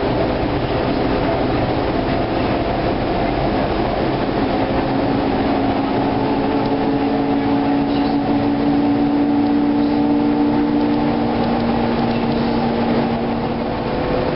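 Cabin noise of a NABI LFW low-floor city bus under way: a steady engine and drivetrain drone with a humming whine, over road noise.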